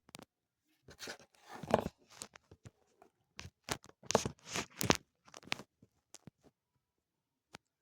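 Slime being handled, squeezed and pulled apart in the hands, giving a run of irregular sticky crackles and pops from about one second in until past the middle.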